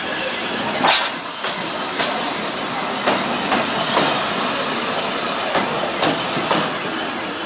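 Passenger train with a diesel locomotive rolling past at close range, its wheels clacking over the rail joints in quick groups of two or three over a steady rumble. The loudest clack comes about a second in.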